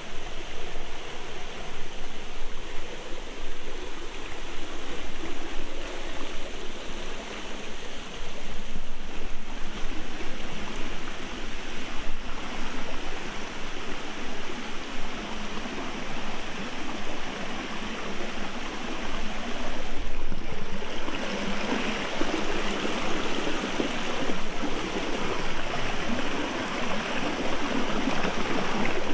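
Small forest stream and waterfall splashing over rocks: a steady rush of running water. It grows a little louder about two-thirds of the way through.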